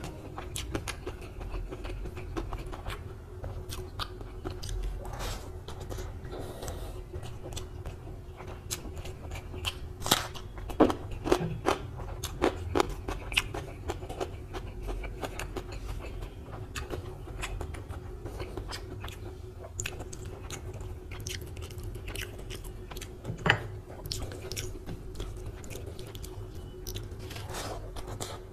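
Close-miked eating by hand: fingers mixing mushroom pulao on a plate, with chewing and biting. Many sharp clicks and smacks run over a steady low hum, loudest in a cluster about ten to thirteen seconds in.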